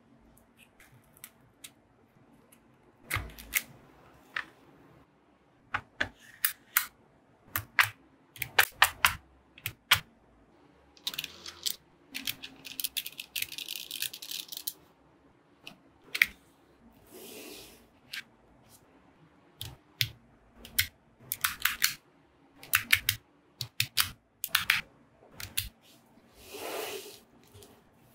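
Small magnetic balls clicking and snapping against each other in sharp, irregular clicks, sometimes single and sometimes in quick clusters. A steady hiss lasts a few seconds near the middle.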